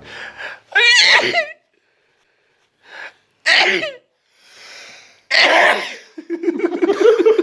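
Three loud sneezes in quick succession, set off by snorted snuff, with a voice starting up near the end.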